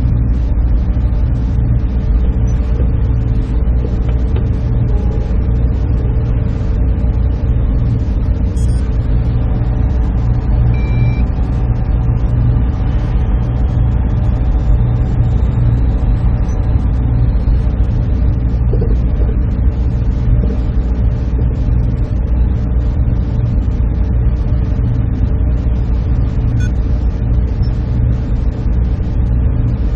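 Server room ambience: the steady drone of many cooling fans and air handling, with a strong low hum and a few faint brief tones above it.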